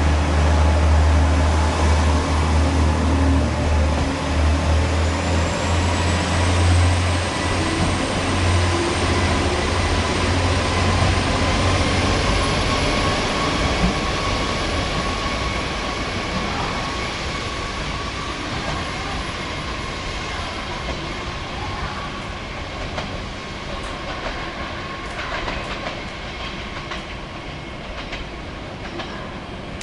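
KiHa 47 diesel railcar pulling away. Its diesel engine runs with a deep hum, and its wheels click over the rail joints. The sound fades steadily, and the engine hum drops away about halfway through as the train recedes.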